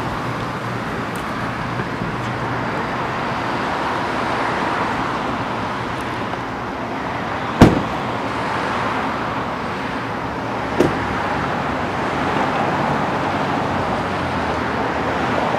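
Steady city street traffic noise, with a car door slamming shut about halfway through and a lighter knock about three seconds later.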